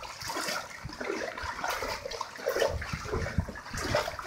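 Floodwater sloshing and splashing as someone wades through it, with a low rumble about three seconds in.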